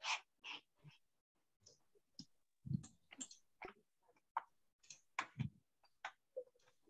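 Irregular faint clicks and light knocks, with a dull low thump a little under three seconds in and another about five and a half seconds in.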